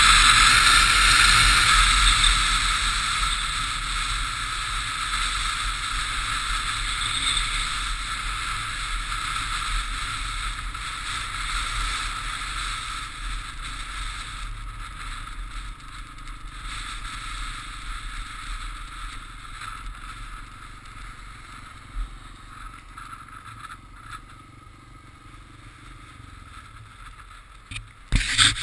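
Wind and road noise rushing over a motorcycle-mounted camera, fading steadily as the bike slows and rolls off onto the gravel shoulder. A few knocks come near the end.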